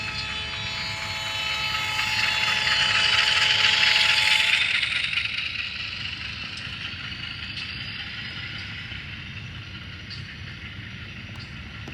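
HO-scale CC206 model locomotive's digital sound decoder playing diesel locomotive sounds: a held chord of steady tones over a low running rumble, with a hiss that swells and then fades. The tones cut off about four and a half seconds in, leaving the quieter low rumble.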